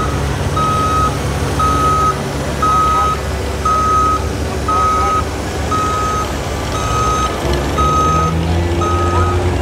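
Heavy vehicle's reversing alarm beeping steadily, about once a second, over an engine running low underneath that revs up slightly near the end.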